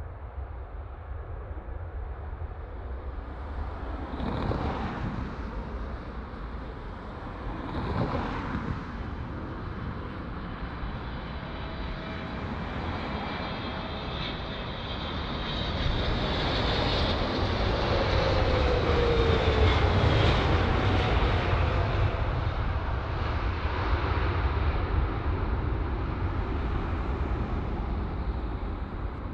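Emirates Boeing 777's twin turbofan engines on final approach, a steady rumble that grows louder as the airliner closes in. It is loudest about two-thirds of the way through, where an engine whine drops in pitch as the plane passes, then eases off.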